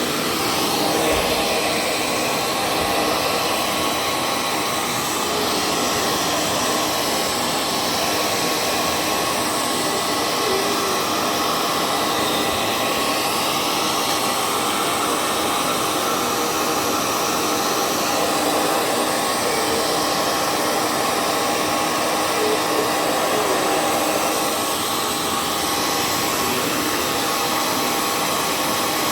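Hair dryer running steadily: a rushing blast of air over a thin, steady fan-motor whine, drying a dog's wet coat.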